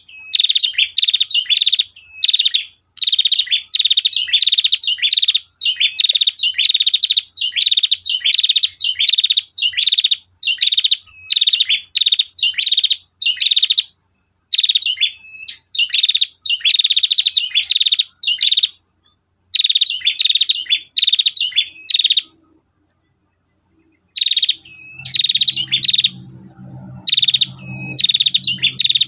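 Female prenjak (prinia) giving its long 'tir' call: high, rapid chattering trills of about half a second each, repeated in quick succession, with a pause of about two seconds near the end before the trills resume. A faint low hum joins in over the last few seconds.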